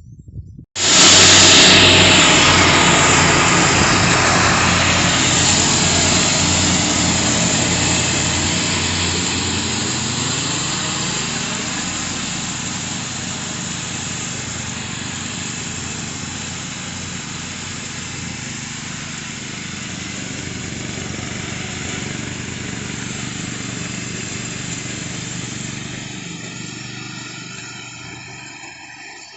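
Small petrol engine of lawn-care machinery running steadily. It cuts in suddenly about a second in, then slowly grows quieter and tapers off near the end.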